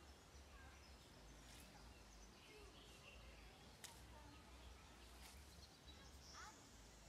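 Near silence: faint outdoor ambience with a low rumble, a few faint bird chirps, and one sharp click about four seconds in.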